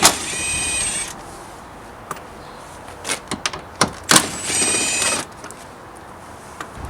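A cordless power driver spinning 10 mm bolts out, in two short whining runs of about a second each, one at the start and one about four and a half seconds in, with clicks and light knocks of the tool and socket between.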